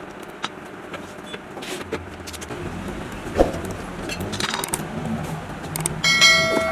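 Scattered clicks and knocks of small metal things being handled, with a sharper knock about three and a half seconds in and a short metallic ring near the end.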